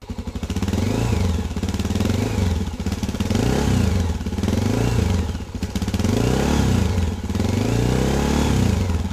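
Off-road vehicle engine, a dirt bike or ATV, revved repeatedly: the pitch rises and falls about six times as the throttle is blipped and released.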